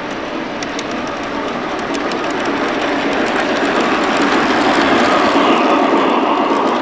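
Large-scale model train, a streamlined steam locomotive with tender and freight cars, rolling along the track past the listener. Its wheels run with a steady rumble and rapid clicking that grow louder as it comes close, peaking about five seconds in.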